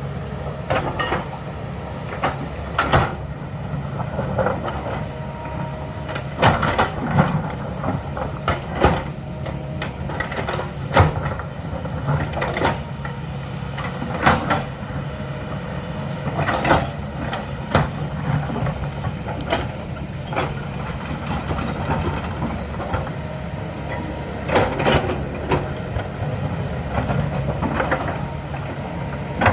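Diesel engine of a heavy earthmoving machine running steadily, with frequent irregular clanks and knocks of metal and rock from the digging work.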